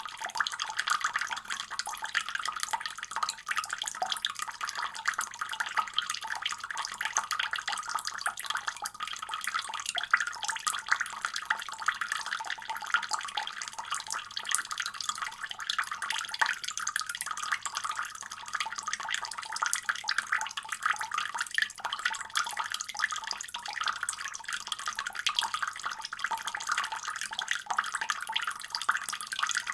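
Water running steadily from a faucet, an even splashing hiss.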